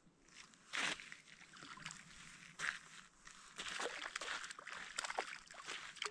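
Water splashing and sloshing in short, irregular bursts as a hooked brook trout is fought and landed.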